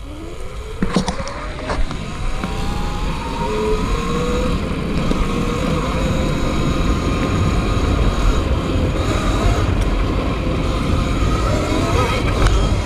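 Eride Pro SS electric bike's motor whining, rising in pitch over the first few seconds as it picks up speed and then holding steady, over a low rumble of riding. A couple of sharp knocks about a second in.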